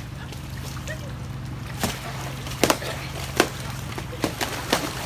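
Pool water sloshing, with a series of sharp slaps from about two seconds in as foam pool noodles are swung and strike bodies and the water, over a steady low hum.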